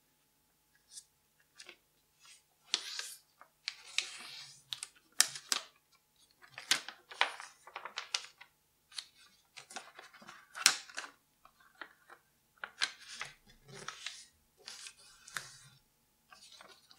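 A sheet of origami paper rustling and crackling in short bouts as it is folded in half, its crease pressed flat with the fingers, then unfolded and folded the other way.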